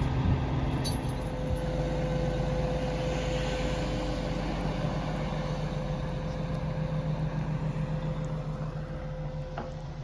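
Heavy diesel engine running steadily, with a constant whining tone over its low hum; it fades a little near the end.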